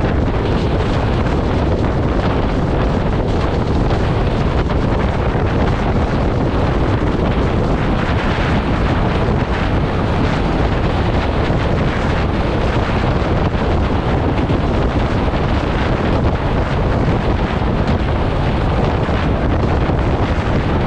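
Wind rushing steadily over a microphone held out of the window of the Benapole Express passenger train running at high speed, over the low rumble of the coaches on the track.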